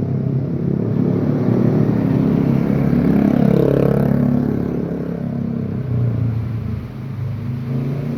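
A motor vehicle's engine running close by, growing louder to a peak about three and a half seconds in and then easing off, as a vehicle passing.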